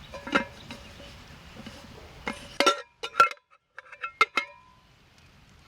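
Metal camp cooking pot clinking and ringing as it is handled, a run of sharp metallic clinks with several close together in the middle.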